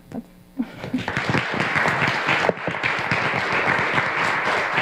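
Audience applauding. The clapping starts about half a second in, builds quickly and then holds steady.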